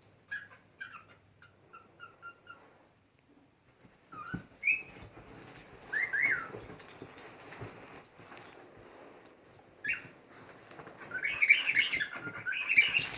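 Cockatiel making a run of short, quick kissing chirps, then a few gliding whistles. Near the end comes a louder burst of squeaky calls.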